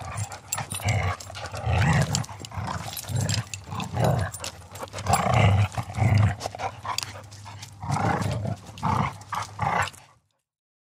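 Pit bulls fighting: a dense, irregular run of barks and snorts with collar movement. It cuts off suddenly about ten seconds in.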